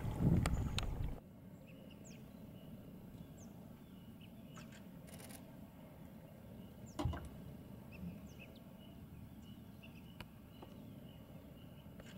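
A low rumbling noise stops abruptly just over a second in, leaving faint waterside ambience with scattered short, high bird chirps. A single brief thump comes about seven seconds in.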